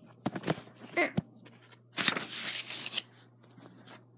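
Paper handling on a paperback book: a few light taps and rustles, then about a second of louder rustling as the page is moved and turned.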